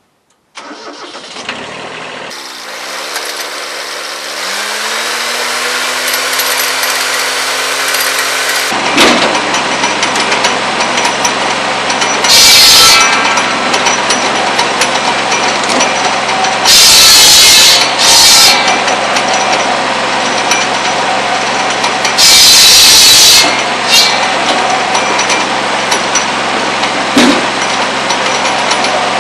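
Kubota B7100 tractor's three-cylinder diesel engine coming up to speed, its note rising and then holding steady, driving a PTO buzz saw whose running hum thickens about nine seconds in. Four short, loud rasping bursts follow as the spinning circular blade cuts through pole wood.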